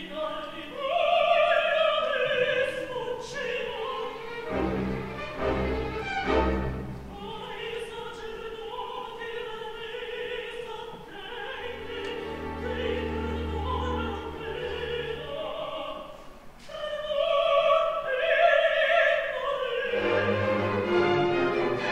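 Operatic mezzo-soprano singing an Italian recitative with strong vibrato, accompanied by an orchestra. Low orchestral chords come in twice between her phrases, and near the end the orchestra carries on without her.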